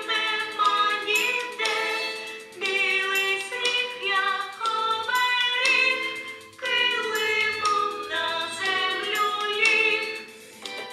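A children's song: sung melody over an instrumental backing track, the tune moving in short notes.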